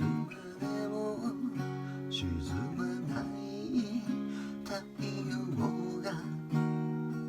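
Acoustic guitar strumming ringing chords, each chord struck afresh every second or so, in the song's instrumental intro.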